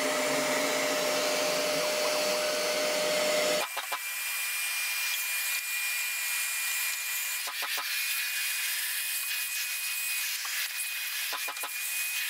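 800-watt CNC router spindle running with a steady whine, cutting off suddenly about three and a half seconds in. A thin high whine lingers afterwards, with two short clusters of light clicks as the hold-down clamps on the spoilboard are handled.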